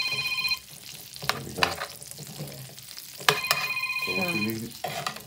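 Asparagus sizzling in butter and olive oil in a frying pan, with tongs clicking against the pan as the spears are stirred. A steady electronic tone of several pitches sounds twice, once at the start and again about three seconds in.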